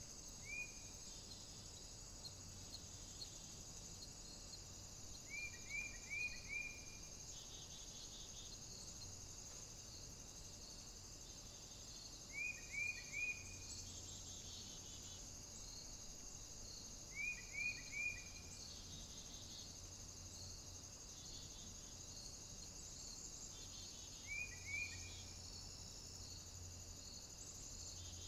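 A bird calling in short runs of three or four quick rising chirps, repeated every five to seven seconds, over a steady hiss of rain.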